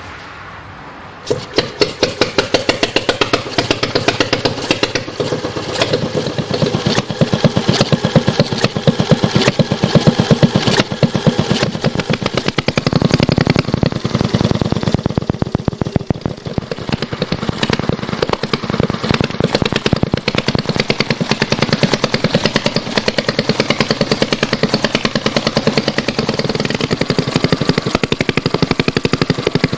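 Homemade flywheel engine catching about a second in and then running with a rapid, regular firing beat.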